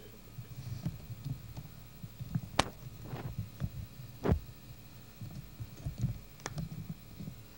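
Handling noise: irregular low thumps, with three sharp clicks and a faint steady hum underneath.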